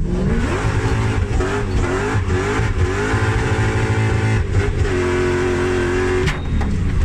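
Audi 4.2 V8 swapped into a BMW E46 drift car, heard from inside the cabin, revving up and down several times, then holding a steady pitch for about a second before dropping off suddenly near the end.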